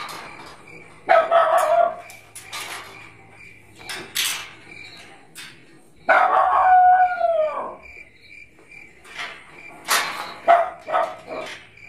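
Animal calls: a short loud call about a second in, then a long call about six seconds in that falls in pitch at its end. Scattered clicks come between them over a faint steady high trill.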